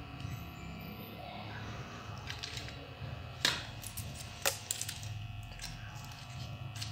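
Small sharp clicks and taps of wire ends and a small battery pack being handled as charging leads are pulled off, the loudest two about a second apart midway, over a steady low electrical hum.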